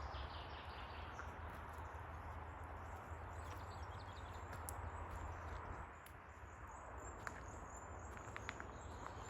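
Faint forest ambience: scattered high bird chirps over a steady low rumble.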